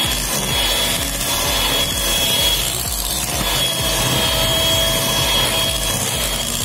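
Electric hand mixer running steadily, its beaters churning a thick cream cheese filling in a glass bowl.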